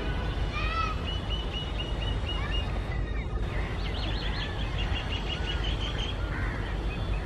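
Small birds chirping in quick runs of short, arched, high notes over a steady low rumble.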